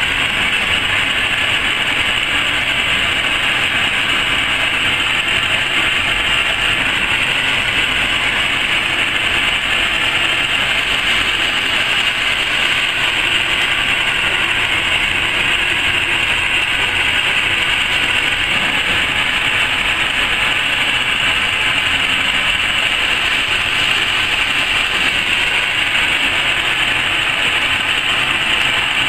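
Automatic-feed laser fabric-cutting machine running, with two cutting heads working. It makes a loud, steady machine noise that stays unchanged throughout, with a hiss-like band in the upper middle.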